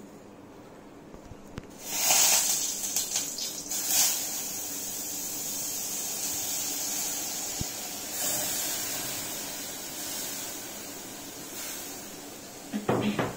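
Crushed garlic, pepper and cumin hitting hot groundnut oil in a steel kadai and sizzling. The sizzle starts about two seconds in, strongest at first with a few sharp knocks, then settles into a steady sizzle that slowly fades.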